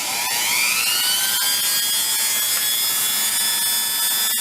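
Rotary tool fitted with a small wire wheel, running against rust on the inside of an old steel mortising chisel. Its whine rises in pitch over about the first second as it speeds up, then holds steady with a high scratchy hiss.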